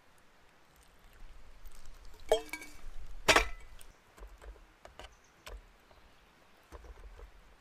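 Aluminium mess tins being handled: a soft clink a little over two seconds in and a sharper metallic clink about three seconds in, followed by a few faint ticks.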